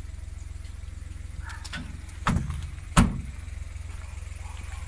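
Boot lid of a Dacia Logan sedan being shut: a thump, then a louder slam about three-quarters of a second later as it latches, over a steady low hum.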